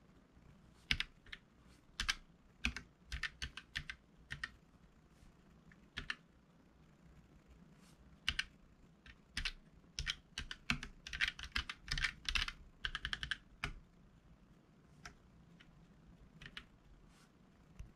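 Keychron K3 low-profile mechanical keyboard with red Gateron linear switches being typed on. There are scattered single keystrokes, a quick burst of fast typing about halfway through, and then only a few strokes.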